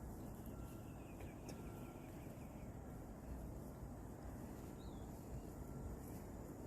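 Faint outdoor ambience: a steady low background hiss with a few scattered bird calls, including a quick falling run of notes about a second in and a short chirp near the end.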